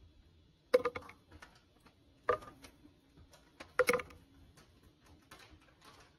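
Garlic cloves and a cinnamon stick dropped into an empty plastic blender jar: three sharp clatters about a second and a half apart, the last one double, with a few lighter ticks between.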